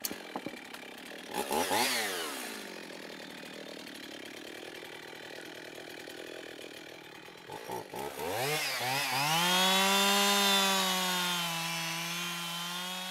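Chainsaw cutting firewood logs. It revs up briefly, runs noisily under load, then about two-thirds of the way through climbs to a steady high-pitched run that holds to the end.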